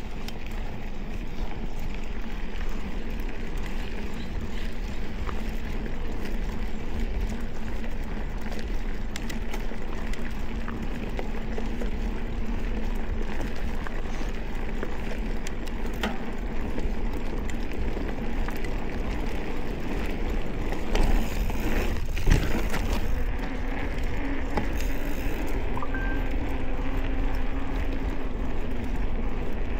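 Mountain bike rolling along a dirt trail: steady tyre noise over the ground with wind rumbling on the microphone, scattered clicks and rattles from the bike, and a louder few knocks a little past two-thirds through. Near the end a faint steady hum comes in as the tyres roll onto pavement.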